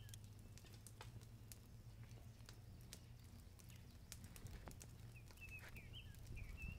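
Near silence with sparse, faint irregular clicks as kebab skewers are turned on a wire grill grate over a campfire.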